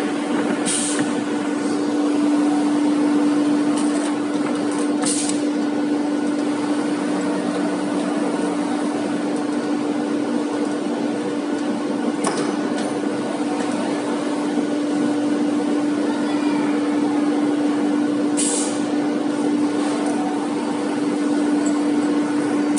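FW2030 ATC wood CNC router running, a steady mechanical hum with one strong constant tone. A few short hissing bursts break in along the way.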